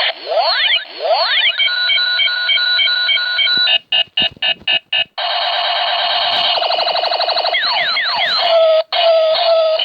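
Loud electronic alarm cycling through its tone patterns: two falling sweeps, a stretch of steady pulsing beeps, about five short chopped bursts, a fast warble, then more falling sweeps and choppy tones.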